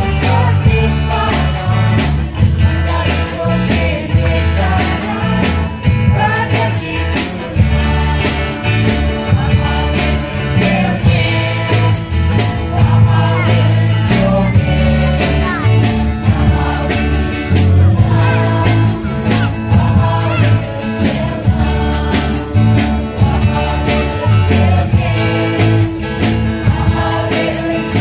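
A group of young women singing a Garo gospel song together over a backing track with a steady beat and strong bass.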